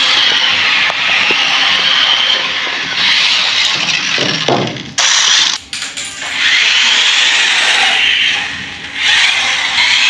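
Toy RC car's small electric motor and gears whining as it drives, the pitch rising and falling with the throttle. It drops away briefly about halfway through and again near the end, then picks up again.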